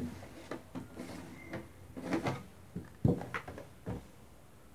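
Red plastic lid being taken off a clear plastic storage jar, with a series of short, light plastic clicks and knocks.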